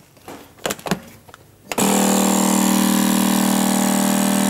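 A few clicks, then the vacuum pump of a Solis EasyVac Professional sealer starts about two seconds in and runs steadily, drawing the air out of a plastic vacuum canister through its hose.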